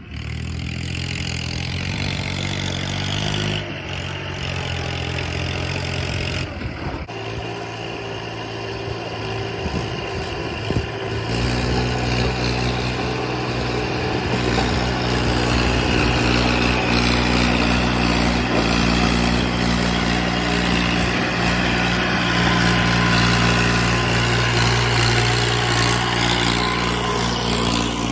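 Massey Ferguson tractor's diesel engine running steadily under load as it hauls a heavily loaded sugarcane trolley, growing louder as it draws near in the second half.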